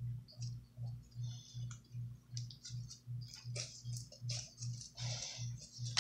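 Slime mixed with Kinetic Rock being squeezed and stretched by hand, giving irregular sticky clicks and crackles that grow busier about halfway through. Under it runs a steady low thump about two and a half times a second.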